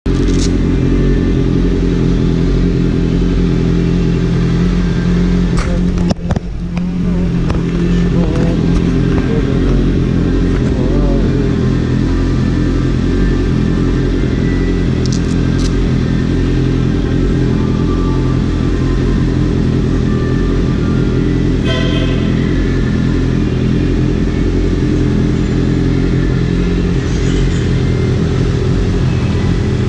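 Sport motorcycle's engine idling steadily close under the rider, with a brief knock about six seconds in.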